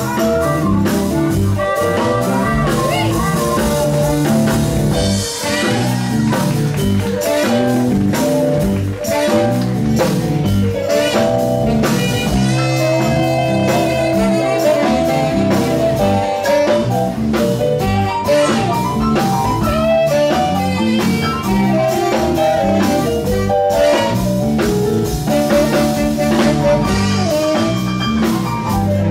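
Live blues band playing, with drums, bass, keyboards and guitar under a harmonica played through a hand-held microphone, and saxophones.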